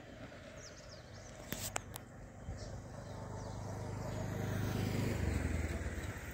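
Low engine drone that swells over a few seconds, then drops off sharply about five seconds in, with a few brief clicks early on.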